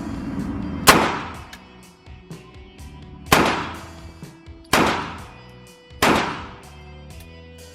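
Four 9mm pistol shots from a P80-frame Glock 26. They come about a second in, at about three and a half seconds, about a second and a half after that, and again about a second and a half later, each a sharp crack trailing off over a fraction of a second, over background music.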